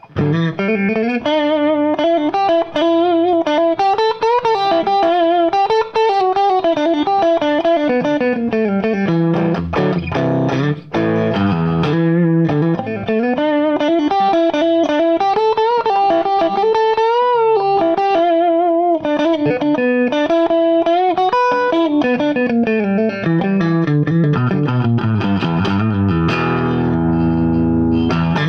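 Charvel electric guitar played through a distorted amp: blues licks of sustained single notes with string bends and vibrato, moving to lower, fuller notes near the end.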